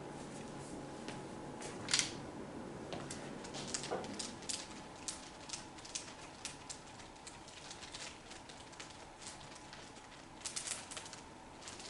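Faint, scattered light clicks and taps at an irregular pace, with one louder click about two seconds in.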